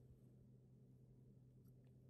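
Near silence: room tone with a steady low hum, and a couple of faint light ticks near the end.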